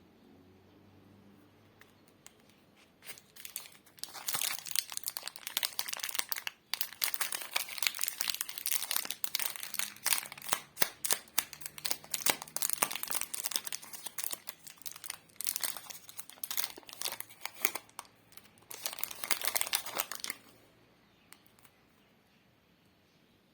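Plastic lollipop wrapper crinkling and crackling in close-up, dense and continuous, starting about four seconds in and stopping a few seconds before the end.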